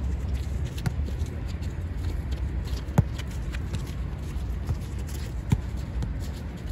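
Five-a-side football in play: the ball kicked sharply twice, about three and five and a half seconds in, among lighter scuffs and footfalls, over a low steady rumble.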